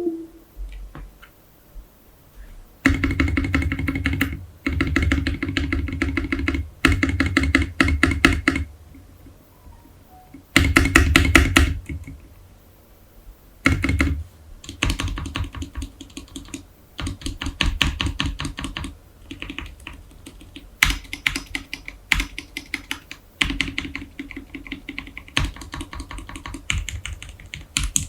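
Typing on a Leopold FC660M mechanical keyboard: bursts of rapid keystrokes a few seconds long with short pauses, then lighter, steadier typing from about halfway.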